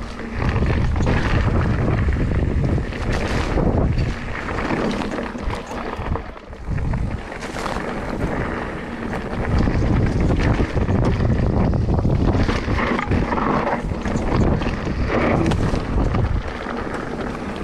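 Wind buffeting the microphone while a mountain bike rides fast down a rough, rocky singletrack: a steady rumble of tyres on gravel and stone, with many small knocks and rattles from the bike, easing briefly a couple of times.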